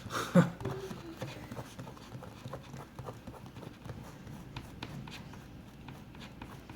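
Faint, irregular scratching and light clicks of leftover plastic film being picked and scraped off an iPad mini's glass screen, after a brief murmur from the technician right at the start.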